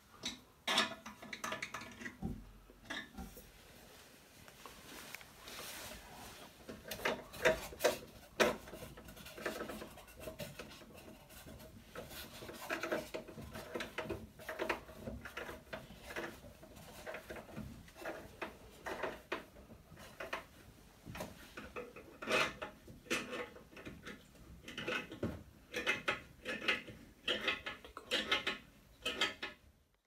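Irregular clinks, knocks and rubbing of tools and fittings at the base of a toilet as it is being installed, with a denser run of knocks near the end.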